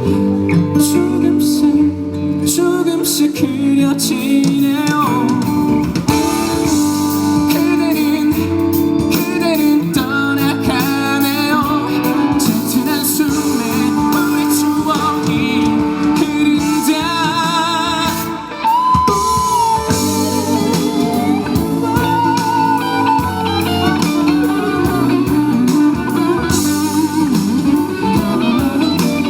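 Live band music with guitar to the fore, playing a melodic passage in a stretch without sung lyrics.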